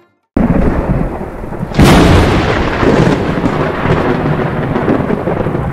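Thunderstorm sound effect: a sudden start of rain-like noise, a loud crack of thunder about two seconds in, then steady rumbling rain.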